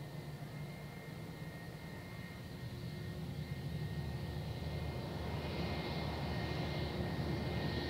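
Airbus A320-232's IAE V2500 turbofan engines running with a steady whine over a low rumble, growing louder from about three seconds in as power comes up for takeoff.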